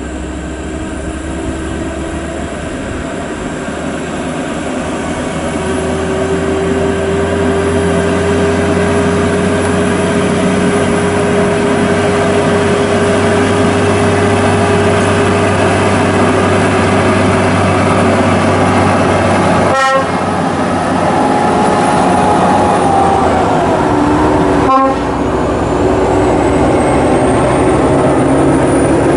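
Heavy Volvo FH16 coal-haul trucks with 16-litre straight-six diesels driving past under load, engines running loud and steady. A held steady tone sits over the engine noise through much of it. The sound cuts out very briefly twice in the second half.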